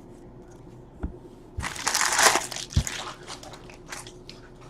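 Plastic wrapping crinkling as it is handled and pulled at, loudest for about a second and a half in the middle, with a light knock before it and a dull thump during it.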